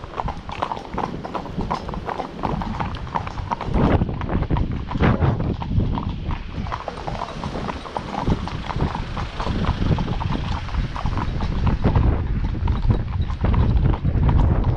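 Hooves of several ponies clip-clopping on a tarmac road, a continuous uneven run of hoofbeats.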